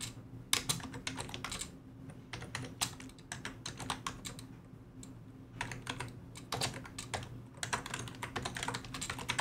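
Typing on a computer keyboard: irregular runs of quick keystroke clicks with short pauses, over a low steady hum.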